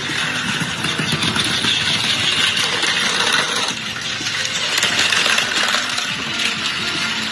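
Small motorized toy vehicles running on plastic track, a steady busy mechanical whirring and clattering.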